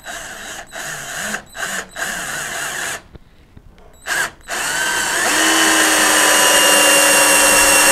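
Xenon CDD 505 cordless drill driver driving a longer screw into hard wood without a pilot hole: several short bursts of the motor to start the screw, a pause, then a long steady run near the end as the screw goes in.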